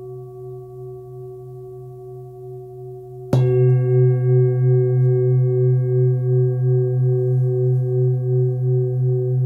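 A large hand-forged Full Moon singing bowl, a low one of about 130 Hz, rings with a steady hum. About three seconds in it is struck and rings out much louder, with a slow pulsing wobble in its tone.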